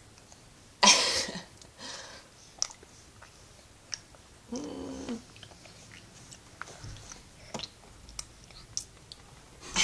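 A baby's wet mouth noises while being spoon-fed rice cereal, with a sharp sputter about a second in as she pushes the food back out, scattered small smacks, and a short vocal sound near the middle.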